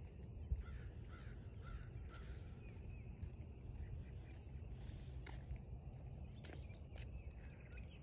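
Wind buffeting the phone's microphone in a steady low rumble, with a few faint short calls early on and several light clicks later.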